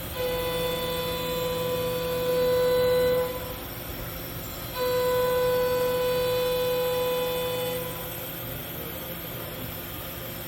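Haas GM-2-5AX gantry CNC router running, with a steady high-pitched whine that holds one pitch for about three seconds, stops, and comes back for another three seconds over a constant machine hum.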